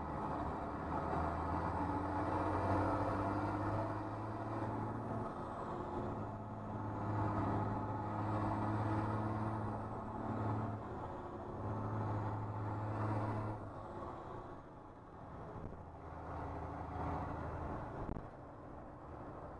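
School bus engine heard from inside the cab, running under throttle and rising and falling in pitch a few times as the driver accelerates and eases off. It drops to a quieter run in the last few seconds.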